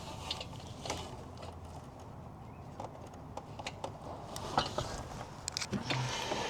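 Scattered metallic clicks and knocks of a ratchet and socket being worked onto a bolt, with a dull thump about six seconds in.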